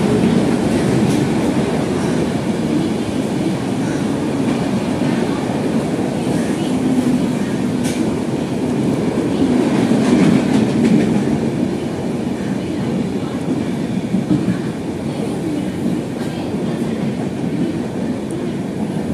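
Chapra Express passenger coaches rolling past a platform: a steady rumble of steel wheels on the rails, with occasional sharp clicks.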